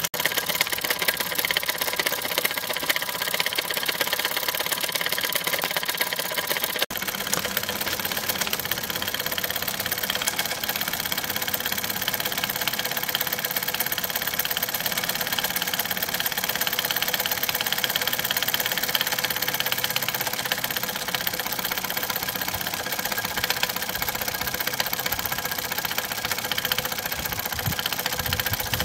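Mamod MM2 model steam engine's single oscillating cylinder running with a rapid, steady beat of exhausting steam. The owner blames its poor running on priming: too much water in the boiler, carrying water into the cylinder.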